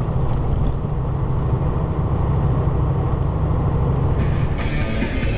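Kenworth W900L semi truck's Caterpillar 3406E diesel engine running, heard from inside the cab as a steady low rumble. Music fades in about four seconds in.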